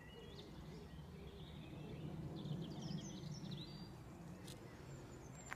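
Outdoor ambience: a steady low background rumble, with birds chirping briefly through the middle.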